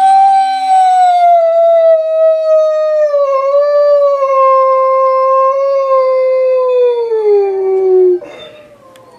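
Wolfdog howling: one long howl that starts high, slides slowly down in pitch and breaks off about eight seconds in.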